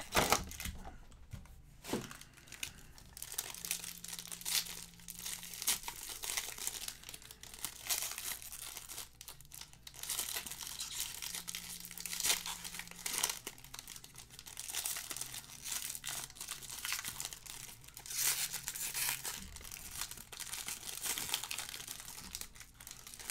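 Foil wrapper of a Panini Spectra trading-card pack being torn open and crinkled by hand, irregular crackling and tearing throughout.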